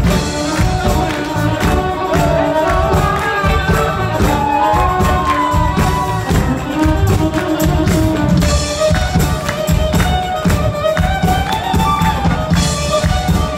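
Band playing lively Jewish wedding dance music, with a driving beat and a wavering melody line on top.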